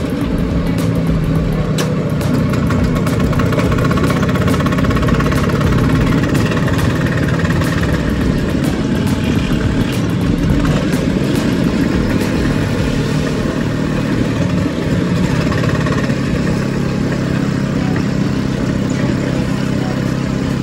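Vespa scooter's engine running steadily while riding, its note holding a fairly even pitch, under a heavy rush of wind and road noise.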